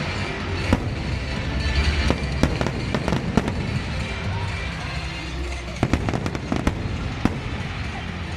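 Fireworks going off in quick succession: a dense crackle of many sharp pops over a continuous low rumble.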